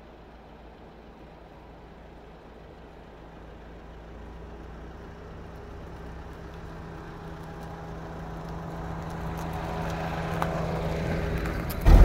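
A vehicle engine running at a steady pitch, growing steadily louder, with a loud low thump right at the end.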